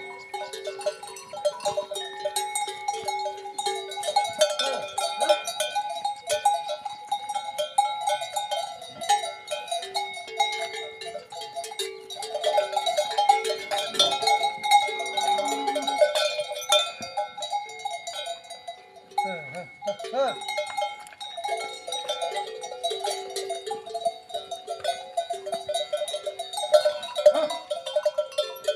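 Several cowbells on grazing cattle clanking continuously and unevenly as the animals move, many ringing tones overlapping with frequent sharp clanks.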